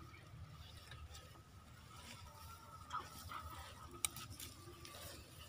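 Quiet outdoor ambience: a low, uneven rumble of wind or handling on the microphone, with a faint steady high tone running through it and a single sharp click about four seconds in.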